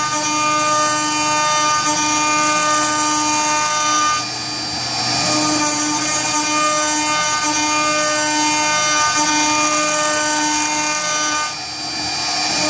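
CNC router spindle at 18,000 rpm milling aluminium with a single-flute carbide endmill: a steady, loud whine with a cutting hiss. It eases briefly about four seconds in and again near the end.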